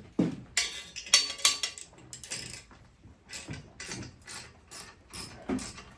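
Irregular metallic clicks and knocks of a ratchet wrench working on the fasteners of a motorcycle exhaust pipe.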